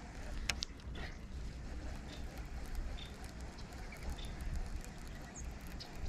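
Baitcasting reel being wound slowly on a retrieve, giving scattered light clicks and ticks, the sharpest about half a second and a second in, over a low wind rumble on the microphone.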